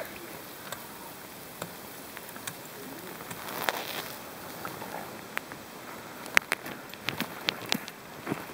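Footsteps crunching in snow over a faint steady hiss, with a quick run of sharp crunches and clicks near the end.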